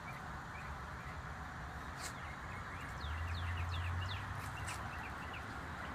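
Steady outdoor background noise with a low rumble that swells about three seconds in. A few short, falling bird chirps sound in the middle.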